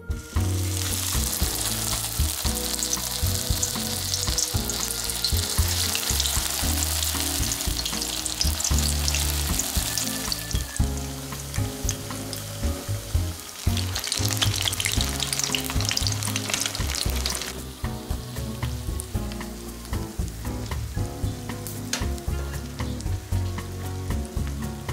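Starch-dusted kurumabu (wheat-gluten rings) shallow-frying in oil in a frying pan: a steady sizzle with dense crackling. It is loudest for the first ten seconds or so, eases, swells again around fourteen seconds, then settles to a quieter sizzle from about seventeen seconds.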